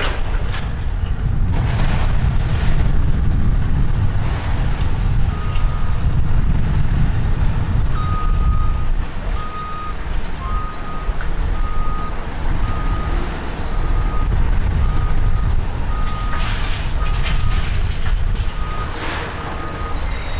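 Demolition excavator and truck at work: a heavy machine's backup alarm beeps about once a second through most of the clip over a steady low diesel engine sound. Crashes of breaking building debris come near the start and again near the end.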